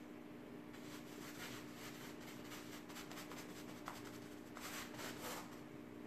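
Paintbrush brushing paint onto a chair's upholstery fabric: a quick, irregular run of soft scratchy strokes, starting under a second in.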